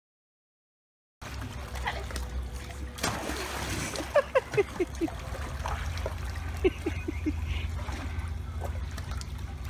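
Swimming-pool water splashing and sloshing as people and a small dog move through it, starting about a second in. In the middle come a quick run of about five short high calls, then three more a couple of seconds later; these are the loudest sounds.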